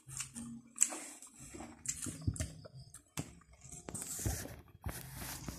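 A person chewing fried fish close to the microphone: irregular wet mouth sounds and lip smacks, with a few sharp clicks.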